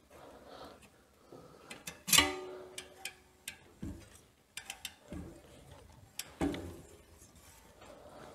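Hand rotor-truing tool levering a bent bicycle disc brake rotor straight, with scattered metal clicks and taps. About two seconds in comes one loud metallic strike, and the steel rotor rings on for about a second and a half.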